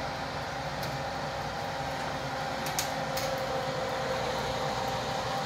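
Electric convection oven's fan running with a steady hum, preheated to 180 degrees, with a few light metallic clicks as a cake pan is set on its perforated tray.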